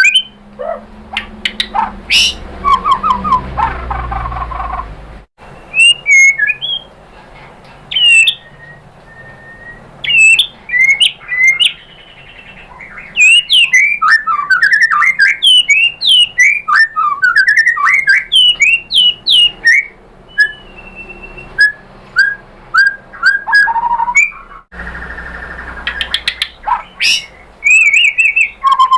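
White-rumped shama (murai batu) singing a varied, fast song of sharp chirps and whistled notes in bursts with short pauses between phrases.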